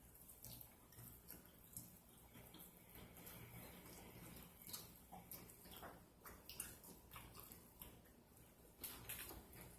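Faint wet chewing and lip-smacking of someone eating fried chicken wings, heard as scattered soft clicks and smacks at an uneven pace.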